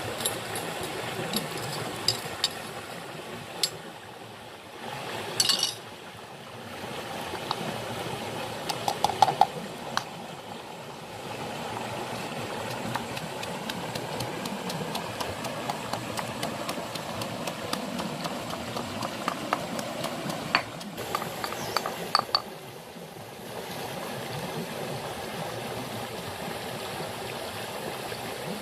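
A stream runs steadily under repeated knocks and clinks of a pestle pounding in a stone mortar, with a few sharper clacks standing out.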